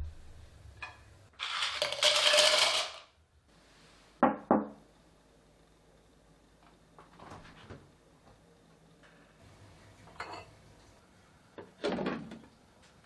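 Kitchen storage containers and food items being handled: a noisy clattering rustle lasting about a second and a half, then two sharp clicks and a few lighter knocks.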